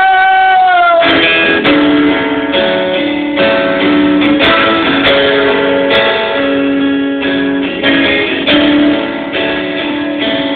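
Acoustic guitar picking a repeating arpeggio of plucked notes, after a held note bends down and dies away about a second in.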